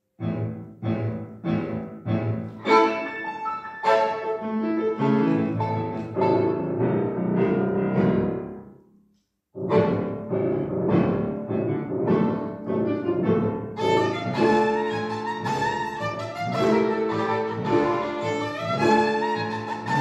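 A tarantella for a bowed string instrument and piano, played live. It opens with repeated chords about twice a second, breaks off for a moment a little before halfway, then resumes with busy, quick string playing over the piano.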